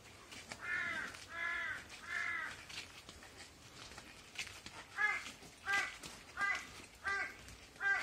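Large-billed crow cawing: three drawn-out caws in the first few seconds, then a run of five shorter caws about two-thirds of a second apart.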